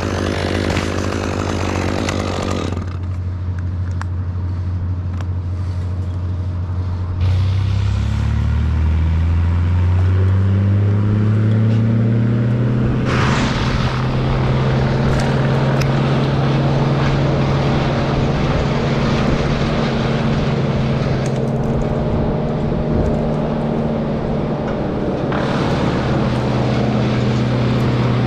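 A chainsaw cuts for the first few seconds and stops. A steady engine drone remains; about seven seconds in, the engine speeds up slowly over a few seconds and then holds at the higher speed.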